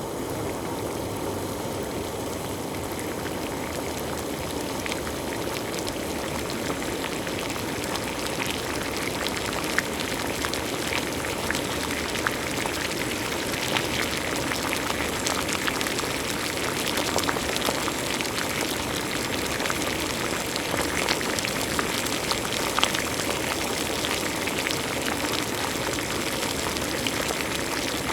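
Water at a rolling boil, a steady bubbling hiss with many small popping bubbles that grow a little busier after the first several seconds.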